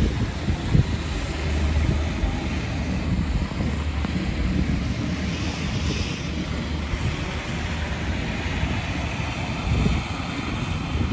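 Wind buffeting the microphone during a snowstorm, a steady low rumble that rises and falls, with the sound of cars moving slowly on a snow-covered road underneath.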